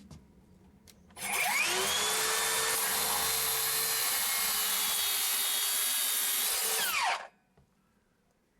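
HiKOKI C3606DA 36V cordless circular saw spinning up about a second in, running steadily while cutting through wood for about six seconds, then winding down with a falling whine.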